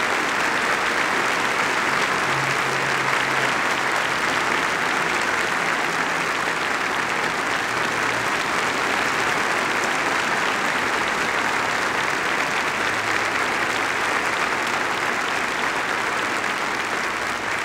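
Large audience applauding steadily, a long continuous ovation that eases off slightly near the end.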